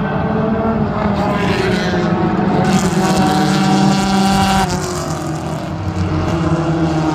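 Front-wheel-drive compact race cars running at high revs around a short oval track. The loudest car passes close about three seconds in, and its engine note drops as it goes by.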